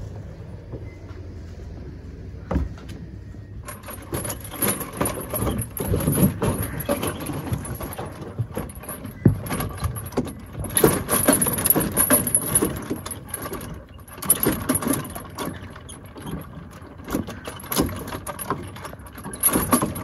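Steel chains of a wooden playground's suspended log bridge jangling and clinking as someone walks across it, with knocks from the wooden logs underfoot. It starts about four seconds in, after a few seconds of wind rumble and footsteps on the wooden deck.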